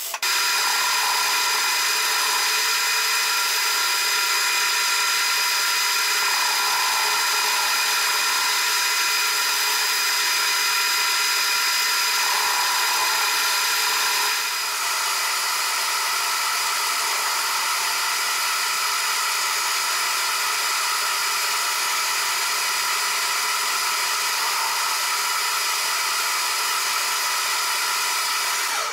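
MIG welder arc on a steel shaft end, then about halfway through a metal lathe running as the weld build-up is turned down. The sound is steady throughout and stops suddenly at the end.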